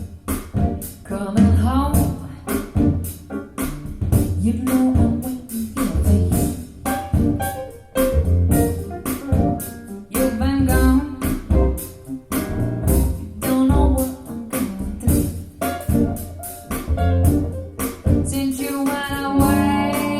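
A song with singing, guitar and a steady beat, played back through JBL Studio 590 floor-standing speakers with horn-loaded tweeters in a furnished room.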